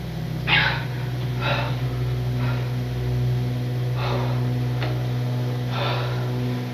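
A person breathing heavily in short, audible breaths, roughly one a second, over a steady low hum.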